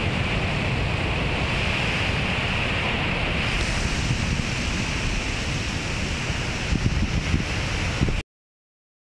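Surf breaking on a rocky shore, with wind buffeting the microphone in a steady low rumble. The sound cuts off suddenly near the end.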